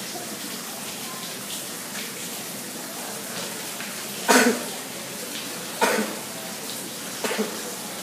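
Steady rush of running water from the exhibit's water feature, broken by three short, sharp bursts about a second and a half apart, the loudest sounds here.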